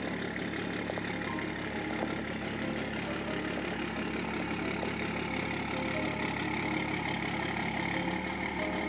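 Pickup truck engine idling steadily as the truck reverses slowly.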